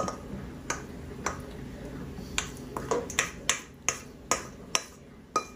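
Cutlery clicking and tapping against a plate: a dozen or so sharp, irregular clicks, coming faster after about two seconds in.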